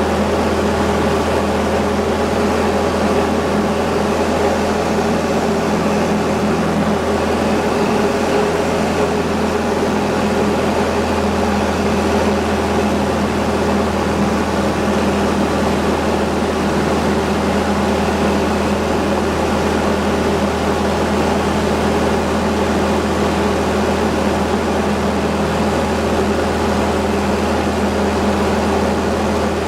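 Diamond DA20-C1's four-cylinder Continental engine and propeller running steadily in flight, a constant droning hum with a slight dip in the low hum about eight seconds in.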